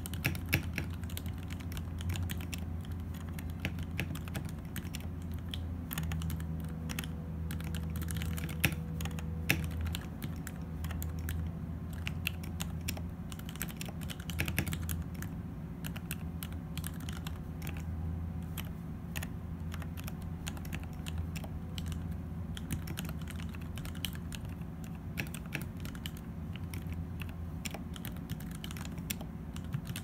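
Custom mechanical keyboard with lubed Cherry MX vintage black linear switches in Gateron housings, PBT Cherry-profile keycaps and a carbon fibre plate in a pine case dampened with shelf liner, typed on without a break: a dense, rapid run of key clacks with a few louder strikes.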